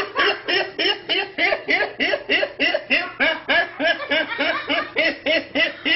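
A teenage boy laughing hard without pause: a rapid, even run of pitched "ha" sounds, about five a second.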